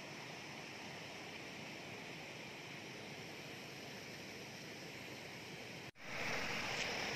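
Floodwater running steadily over the banks of flooded rice paddies. About six seconds in it cuts to a louder, closer rush of water pouring through a gap in an earthen paddy bank.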